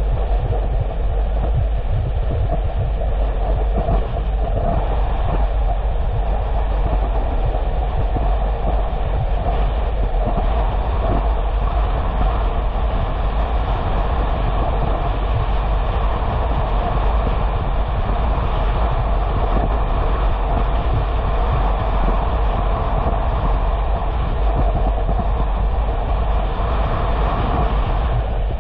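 Steady road and engine noise from a car being driven, a low rumble with an even hiss over it and no change in pace.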